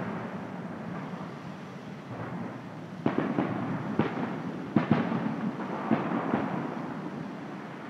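Aerial fireworks shells bursting: a fading rumble from the previous burst, then about half a dozen sharp bangs from about three seconds in, each trailing off in a rolling rumble.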